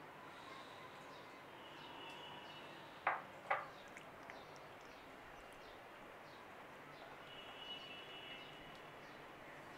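Faint background hiss with thin bird chirps, and two sharp knocks half a second apart about three seconds in, as glass kitchenware is handled on a marble counter.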